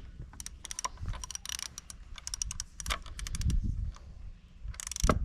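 Socket ratchet wrench clicking in quick runs of sharp ticks as it is swung back and forth, tightening a spark plug into an outboard motor's cylinder head, with a louder burst of clicks near the end.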